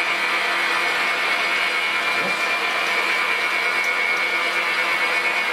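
Weiss WMP280V-F variable-speed metal lathe running steadily at about 583 rpm with a high whine, while a 45-degree chamfer is cut by hand-feeding the compound slide.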